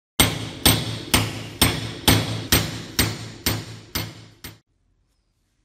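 Hammer driving a cold chisel through a rusted steel ring: about ten sharp, ringing metal blows at roughly two a second. The last blows are weaker, and the strikes stop about four and a half seconds in, as the ring is cut through.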